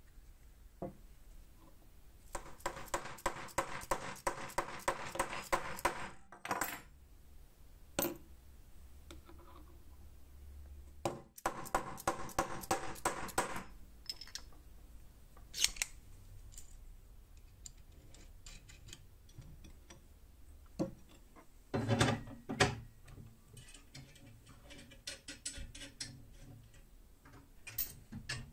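Metal-on-metal clicking from hand work on steel grinder wheels and their ball bearings. Two runs of rapid, even clicks come at about four to five a second, then scattered single clicks and clinks.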